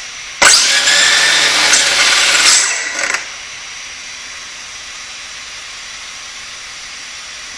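12S-converted Losi DB XL-E's brushless motor and drivetrain given a full-throttle burst while the car is held down: a sudden loud high whine and rush that lasts about two seconds, then winds down. A much quieter steady whir is left after it.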